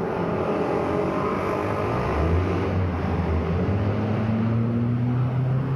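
Road traffic heard from a moving bicycle: a nearby motor vehicle's engine hum rising slowly in pitch from about two seconds in, over a steady rush of road noise.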